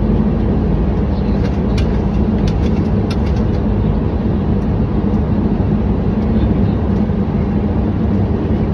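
Steady rush of airflow and engine noise inside a Boeing 737 cockpit on approach, with a low steady hum, and a few faint clicks a couple of seconds in.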